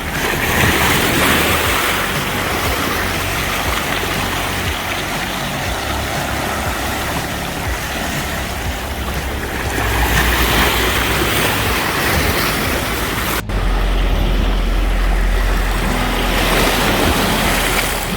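Sea waves washing against the shore, swelling and breaking at the start, about ten seconds in and again near the end. A brief break about thirteen and a half seconds in is followed by a deep, steady rumble underneath the surf.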